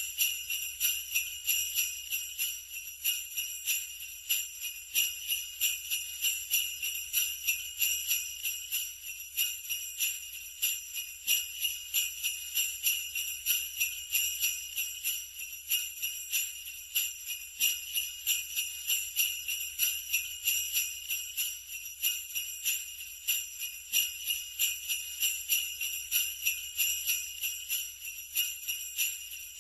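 Sleigh bells shaken in a steady, even rhythm, a continuous bright metallic jingling.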